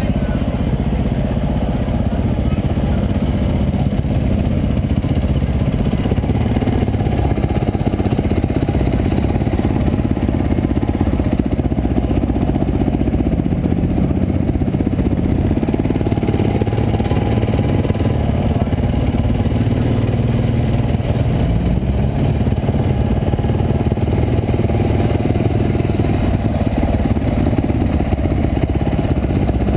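Dirt bike engine running steadily under way, its pitch drifting gently up and down with the throttle.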